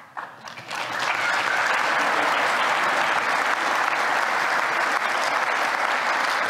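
Audience applauding: a few scattered claps at first, building within about a second into steady applause.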